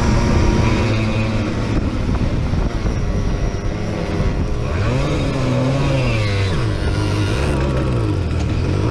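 Simson moped's 50 cc single-cylinder two-stroke engine running hard at racing speed, heard from on board with wind rush. In the second half the engine pitch drops and climbs again several times.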